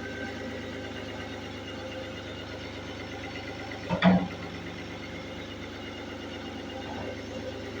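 A motor running steadily with an even hum, and one short loud bump about four seconds in.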